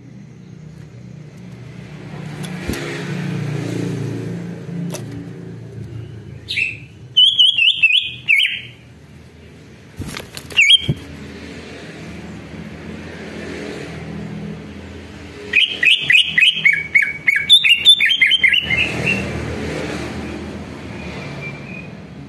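Male green leafbird (cucak ijo) singing loud, rapid bursts of chattering notes: one about seven seconds in, a short one near eleven seconds, and a longer run around sixteen to nineteen seconds that steps down in pitch. Under the song is a low rumble that swells and fades.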